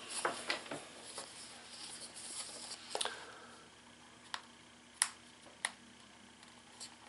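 Fingers scraping and rustling at the small cardboard box of an Apple AirTag as it is being opened, faint, with a few short sharp clicks of the card and tabs in the second half.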